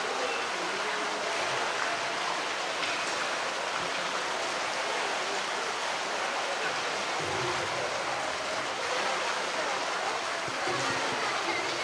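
Steady rush of running water in a polar bear pool.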